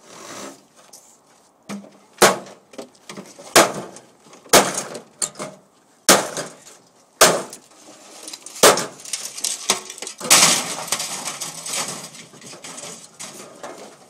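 Microwave ovens being broken apart for scrap with a hammer: about seven sharp blows, one every second or so, then a longer clatter of breaking parts lasting a couple of seconds.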